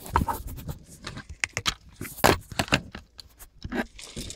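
Handling noise from a phone being moved about: a rapid, irregular run of clicks, knocks and rustles.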